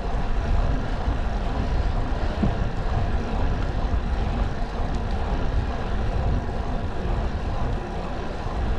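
Steady, low wind rumble buffeting the microphone of a road bicycle being ridden on an asphalt road.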